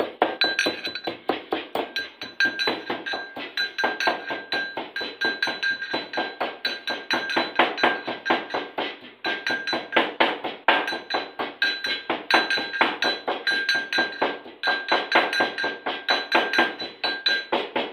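Metal mortar and pestle pounding whole spices: a fast, even run of clinking strikes, about four a second, with the metal mortar ringing on a steady high tone after each blow.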